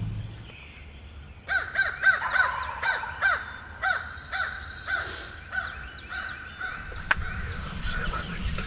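Crow cawing: a long run of harsh caws, about two or three a second, growing fainter toward the end.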